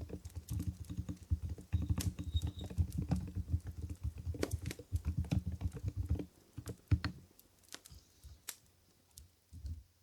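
Fast typing on an Mstone Groove GV10 capacitive keyboard with silent Coral 45g switches: dense, muted, low-pitched keystrokes. About six seconds in the typing stops, leaving a few scattered single clicks.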